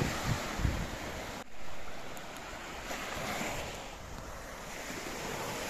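Sea surf washing onto a sandy beach, a steady hiss of breaking waves. Wind buffets the microphone in a few low thumps near the start.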